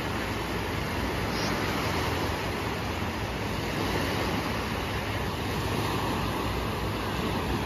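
Small waves of the Adriatic Sea breaking and washing up onto the beach, a steady wash of surf.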